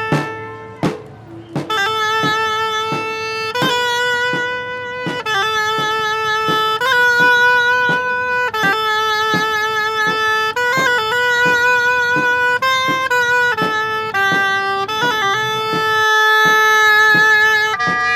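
Oboe playing a slow melody of long held notes, some with vibrato, over a steady beat of light drum taps; the melody breaks off briefly about a second in.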